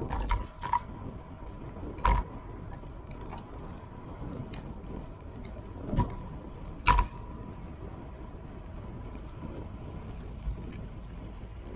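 Steady wind and road rumble of a ride, broken by sharp knocks: two close together at the start, then one about two seconds in and two more around six and seven seconds in.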